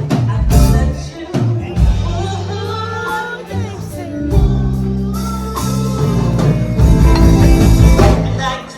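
Background music: a song with a vocal line over bass and drums.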